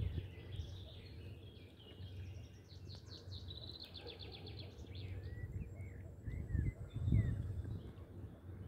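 Small birds singing: scattered chirps and a fast trill about three to four seconds in, over a low uneven rumble that swells briefly near the end.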